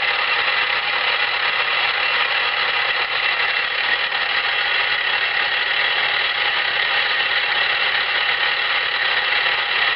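Small milling machine running steadily with an end mill cutting a replacement lathe gib: an even whir with several constant whining tones.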